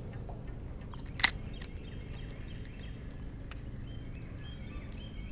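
Outdoor lakeside ambience: faint bird chirps over a steady low rumble, with one sharp click about a second in that stands out as the loudest sound.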